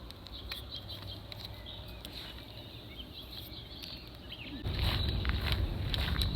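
Light rustling and scratching with scattered small clicks over a low rumble, getting louder and busier about two-thirds of the way through.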